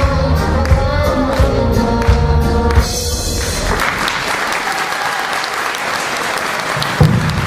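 Children's choir singing over musical accompaniment with a steady low beat, the song ending about three seconds in, followed by audience applause. A single loud thump sounds near the end.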